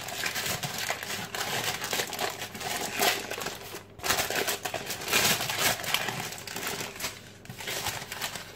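Baking paper crinkling and rustling in uneven spells as it is peeled off a cold block of butter.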